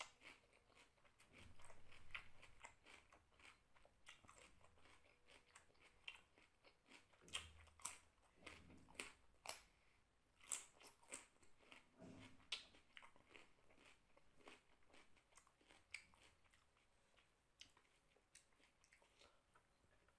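A person chewing a mouthful of rice and vegetable curry eaten by hand, with a string of short, sharp wet mouth clicks. The clicks come thickest in the middle stretch.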